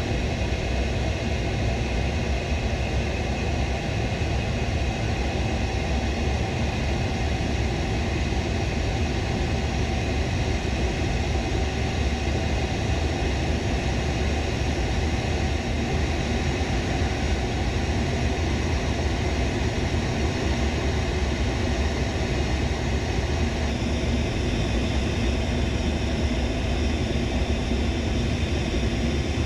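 Steady cockpit noise of an A-10 Thunderbolt II in flight: the hum of its twin turbofan engines mixed with the rush of air over the canopy, heard from inside the cockpit.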